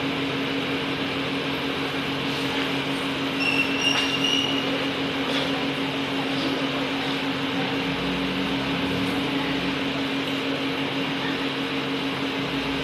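Steady rushing noise with a low hum running through it.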